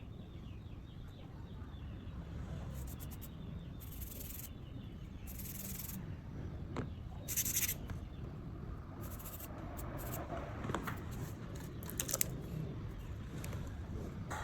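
Small tools working on a Casio G-Shock GA-200 watch: scattered light clicks and short scrapes of metal on the case and parts, over a steady low hum.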